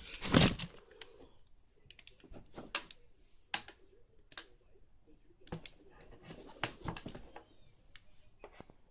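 Sneakers and their packaging being handled as they are pulled out of the shoebox. A loud crinkle comes about half a second in, then scattered soft rustles and light clicks and taps.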